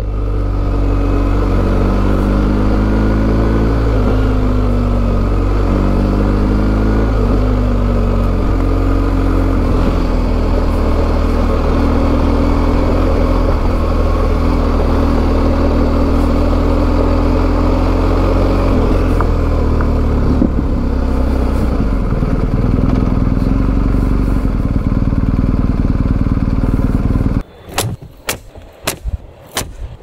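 BMW GS Adventure motorcycle engine running under way, heard from the rider's seat with wind noise, its note shifting up and down with the throttle. About 27 seconds in the engine sound cuts off abruptly, and a few sharp clicks follow.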